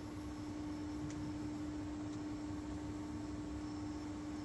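Steady electrical hum of workshop machinery, one constant tone over a low rumble, with a couple of faint light ticks.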